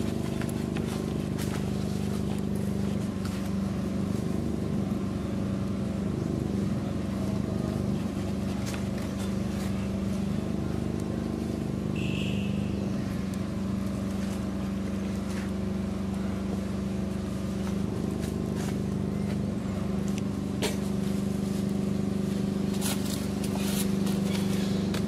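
A steady low mechanical hum, like an engine running, with scattered faint clicks and one brief high chirp about halfway through.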